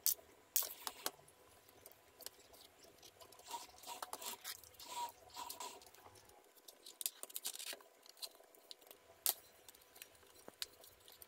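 Faint, scattered small clicks and taps of a screwdriver working the screws of a laptop's plastic bottom casing while the laptop is handled.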